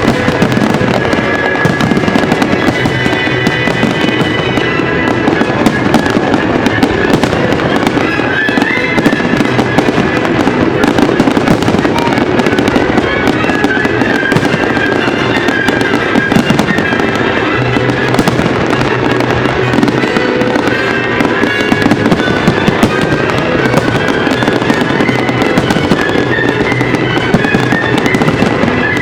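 A fireworks display going off in a dense, continuous barrage of bangs and crackles, with music playing underneath.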